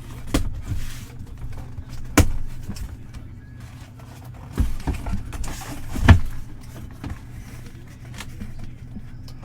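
Packaging being handled and opened by hand: light rustling with several sharp knocks, the loudest about six seconds in, over a steady low hum.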